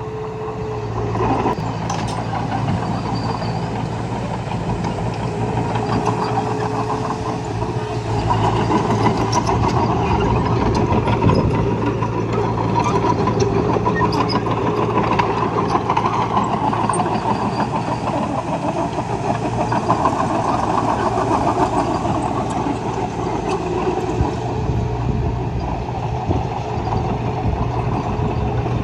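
Engine of heavy earthmoving machinery running steadily under work, with scattered short metallic clanks.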